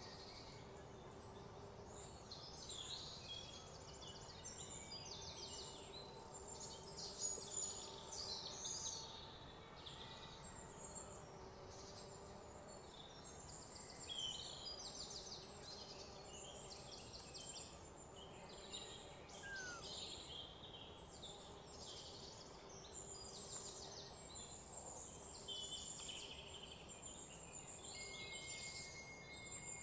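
Faint insects and birds chirping: many short, rapidly pulsing high-pitched calls, with a faint steady hum underneath.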